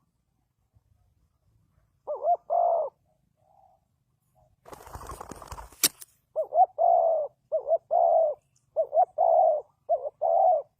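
Spotted dove cooing in paired notes, a short coo followed by a longer one: one pair about two seconds in, then four more pairs in quick succession over the second half. Just before that run there is about a second of rustling noise ending in a sharp click.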